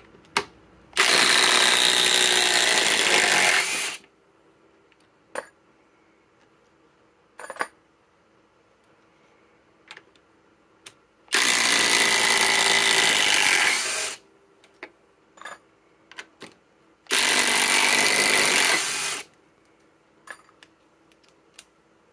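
Cordless impact drivers (a SKIL PowerCore 20 and a Master Force Boost) hammering on long timber-lock screws in a wooden beam, in three loud runs of about two to three seconds each. A few short clicks fall in the gaps between runs.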